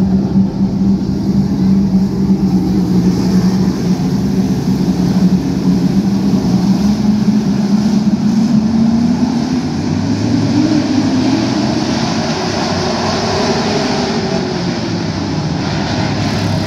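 A field of Super Stock dirt-track race cars' V8 engines running together in a steady drone, its pitch rising about eight to ten seconds in as the cars speed up.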